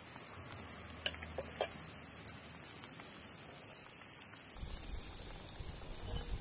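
Potato and onion soup bubbling at a boil in a steel pan over a wood fire, with two light clicks of the metal ladle against the pan about a second in. From about four and a half seconds in, a louder steady hiss comes in.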